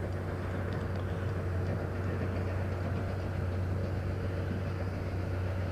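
Steady low engine rumble with a constant low hum, and no distinct knocks or events.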